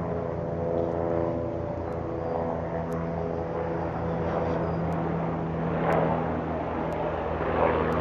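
A steady engine drone with several layered tones and a fast pulsing beat, with a few faint sharp clicks.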